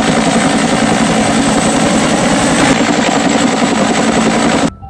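Toy police helicopter switched on, making a loud, steady helicopter rotor noise that cuts off suddenly near the end.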